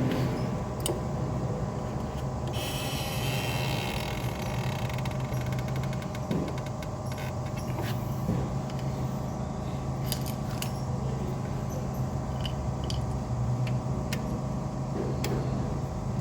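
A steady mechanical hum runs throughout, with scattered sharp metallic clicks and clinks from tools and brake parts being handled. A brief hiss comes about three seconds in.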